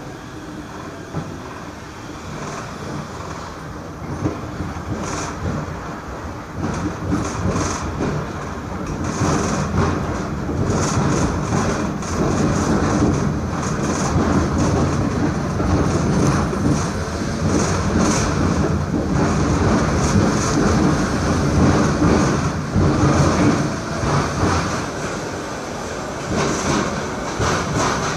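SGP E1 tram with a C3 trailer running along the track, its wheels clicking over rail joints. The running noise grows louder over the first twenty seconds, then eases off near the end.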